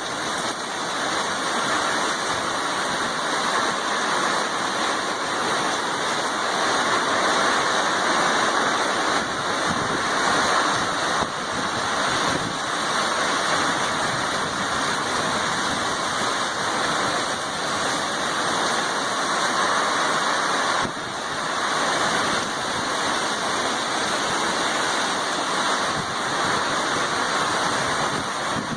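Heavy storm rain and wind making a loud, steady rush of noise.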